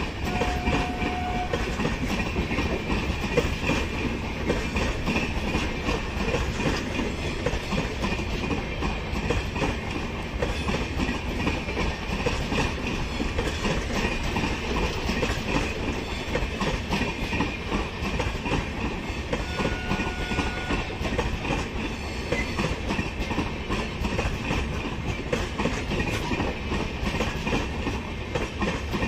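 Passenger train coaches rolling slowly past, wheels clicking steadily over rail joints with a continuous rumble.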